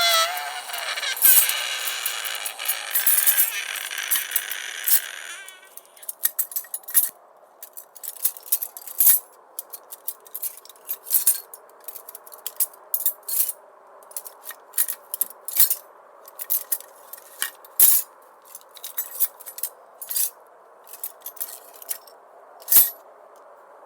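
A sustained sound with many steady tones for about the first five seconds, then sparse sharp metallic clinks, one or two a second at irregular spacing, over a faint steady hum.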